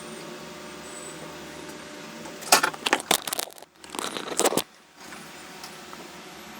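Clicking and clattering of small hard objects being handled, in two short bursts about two and a half and four seconds in, over a steady background hum.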